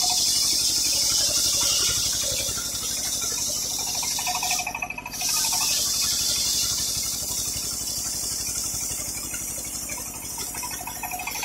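A circular-saw blade on a sawmill bench is ripping through a teak log, making a loud, steady, high hiss of cutting over the low hum of the saw's drive. The cut breaks off briefly about five seconds in, then carries on.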